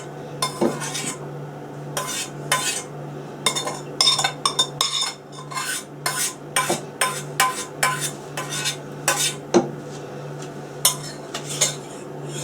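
A metal spoon or whisk clinking and scraping irregularly against a pan and bowl, working the egg-white and sugar meringue mixture, over a low steady hum.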